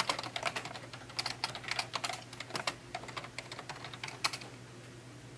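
Typing on a computer keyboard: quick runs of key clicks for the first three seconds, thinning to a few isolated key taps after that.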